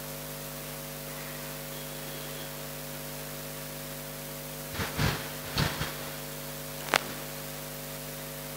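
Steady electrical mains hum in the sound system, held at several fixed pitches. A few brief soft sounds come about five and six seconds in, and a short click near seven seconds.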